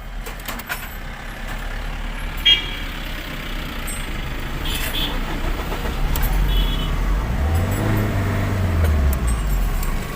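Tata Vista's engine running steadily after a shorted fuel-pump wire was repaired, revved up and back down once near the end. A brief sharp sound about two and a half seconds in.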